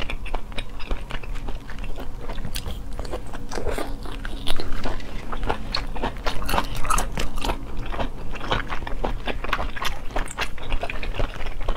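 Close-miked mouth sounds of someone biting and chewing raw arctic surf clam sashimi: a dense run of small clicks and smacks, over a steady low hum.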